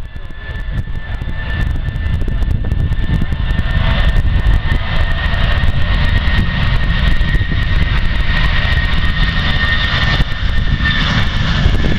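Airbus A320-family airliner's twin jet engines at takeoff power on the departure roll: a loud rumble that builds over the first two seconds and then holds steady, with a steady high fan whine that fades near the end.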